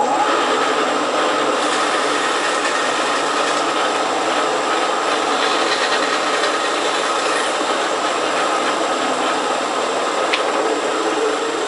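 Bandsaw running steadily, its blade cutting a notch into a carved block of Ganoderma shell fungus.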